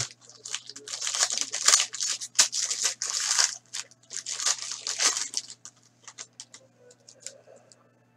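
Silver foil wrapper of a trading-card pack crumpled in the hands: dense, sharp crinkling for about five seconds, then a few fainter clicks and rustles as the cards are handled.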